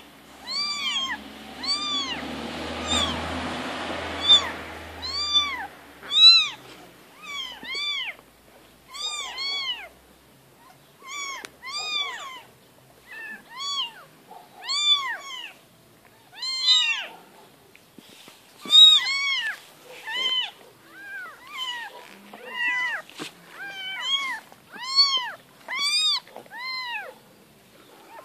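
Very young kittens mewing over and over in high, thin calls, each mew rising and then falling in pitch, about one or two a second, some calls overlapping. A rushing noise runs under the mews for a few seconds near the start.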